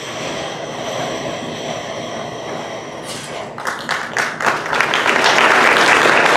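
Audience applause, starting as scattered claps about halfway through and building to full clapping near the end. Before it, several steady high tones hold over a low rumble.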